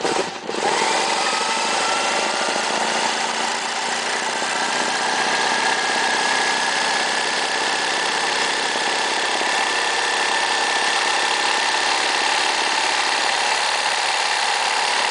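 Juki LZ-391N industrial zigzag sewing machine starting up and running continuously at high speed, stitching embroidery; its pitch climbs a little over the first couple of seconds as it comes up to speed, then holds steady before it stops at the end.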